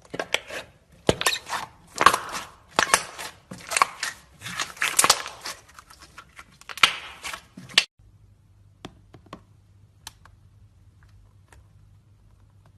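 Hands pressing and squeezing slime, giving a dense run of crackling, popping squelches. About eight seconds in it cuts off abruptly, leaving a few faint clicks over a low hum.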